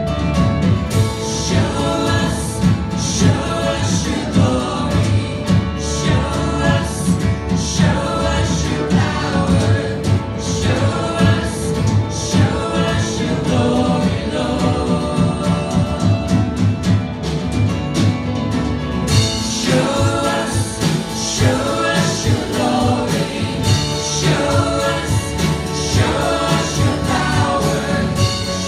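Live worship band playing a contemporary worship song: electric guitars, bass, drums and keyboard under lead and backing vocals.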